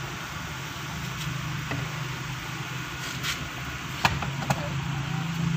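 A few sharp metal clicks from a screwdriver working at the screw of a car door's inner handle, two of them close together about four seconds in, over a steady low hum.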